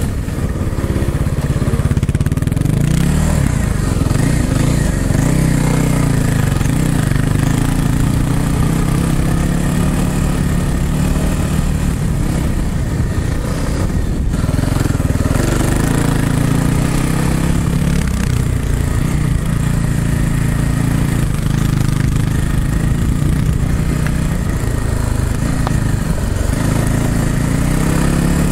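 Dirt bike engine running on a trail ride, its revs rising and falling again and again as the rider works the throttle.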